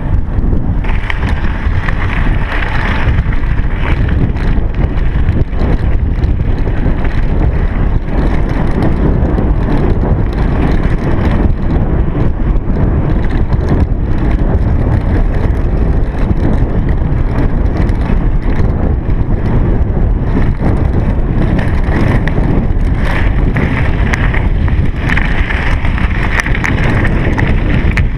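Steady low wind rumble on the microphone of a chest-mounted camera on a moving bicycle, mixed with tyre noise and small knocks and rattles from the bike. A brighter hiss comes up briefly about a second in and again near the end.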